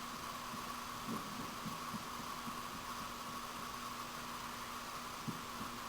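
A quiet, steady electrical hum with a couple of faint soft ticks, about a second in and near the end.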